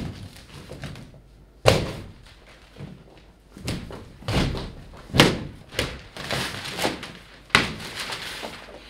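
A large paper photo backdrop being punched through and torn open from behind: a sharp hit on the paper about two seconds in, then a run of ripping and crumpling, with another sharp tear near the end.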